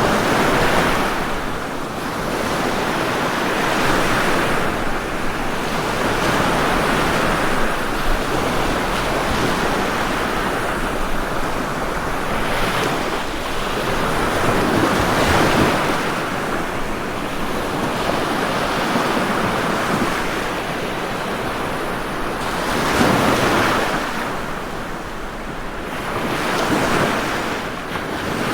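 Ocean waves breaking and washing on a shore, a continuous rush of surf that swells and eases every few seconds.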